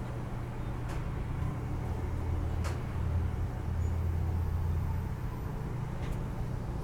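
Steady low rumble of an Amtrak Empire Service passenger coach running along the track, heard from inside the car, swelling slightly midway, with about three faint clicks.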